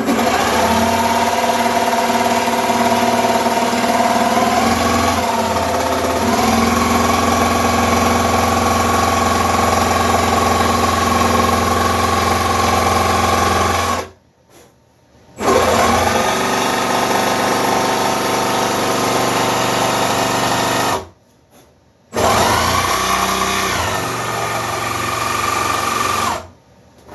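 Cordless Milwaukee M18 FUEL jigsaw cutting a curve in a wooden table top, a steady motor whine that stops and restarts twice. Its pitch dips briefly a few times as the blade bites harder.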